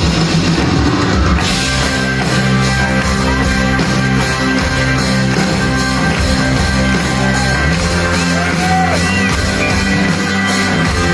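Live rock band playing loudly: guitars, bass and drum kit, with cymbals filling out the sound about a second and a half in.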